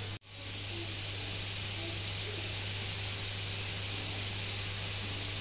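Steady hiss with a low electrical hum underneath, dropping out for an instant just after the start at an edit cut.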